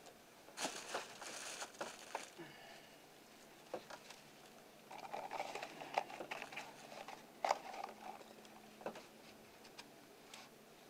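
Faint rustling and scraping of work gloves and a fleece sleeve as hands fit the thermostat housing back onto the engine, with a few light clicks along the way.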